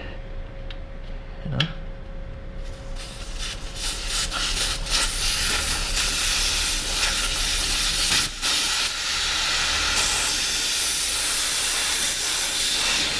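Air rushing out of a motorcycle's rear tyre through the open valve once the valve core is unscrewed: a few small clicks of the valve tool, then from about two and a half seconds in a loud, steady hiss as the tyre deflates.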